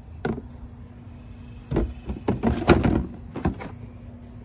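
Empty plastic quart motor-oil bottles and their cardboard case being handled: a string of knocks and clatters, busiest between about two and three seconds in. A faint steady hum runs underneath.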